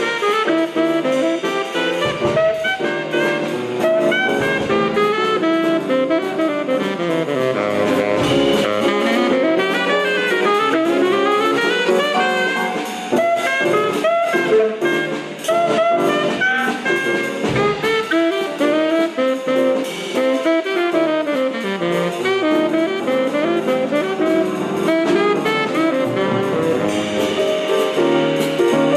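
Instrumental jazz played by a horn ensemble, saxophones and brass with quick runs of notes over a drum kit.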